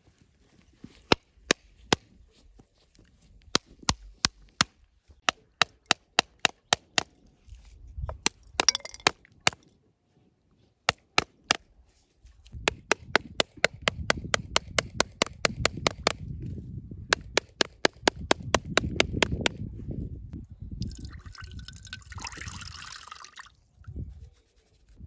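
A metal pounder knocking on a husked coconut's shell in runs of sharp taps, quickest in the middle at about four a second, to crack it open. Near the end the coconut water runs out into a ceramic bowl with a short hiss.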